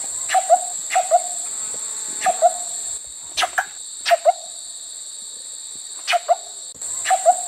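High-pitched insect buzz, dropping in level about three seconds in and rising again near the end. Over it, short sharp animal calls repeat, mostly in quick pairs, about once a second with a few longer gaps.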